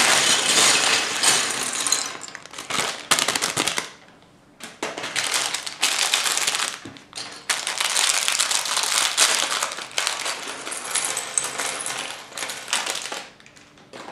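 Clear plastic Lego bags crinkling as they are torn open, and small Lego bricks clattering out onto a wooden tabletop, with a short lull about four seconds in.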